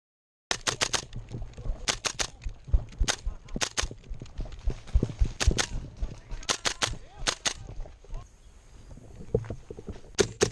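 Airsoft gas-blowback rifles firing sharp shots in quick strings of two to four, a string every second or so, starting abruptly about half a second in. There is a short lull near the end before another string.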